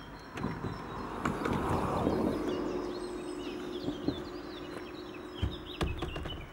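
Birds singing while a hatchback's tailgate is opened and things are handled in the boot, with footsteps on gravel. A steady hum comes in about two and a half seconds in, and two sharp knocks sound near the end.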